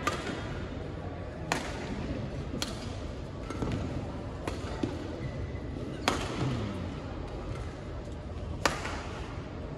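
Badminton rally: rackets striking the shuttlecock, about six sharp cracks one to two seconds apart, ringing in a large hall over its steady background noise.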